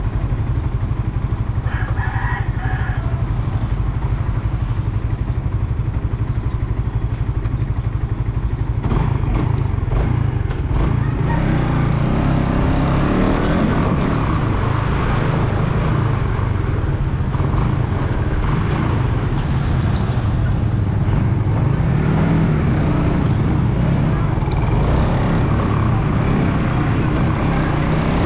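Suzuki Raider 150 Fi single-cylinder motorcycle engine running with a steady low rumble. From about nine seconds in the sound grows fuller and slightly louder, with the pitch rising and falling.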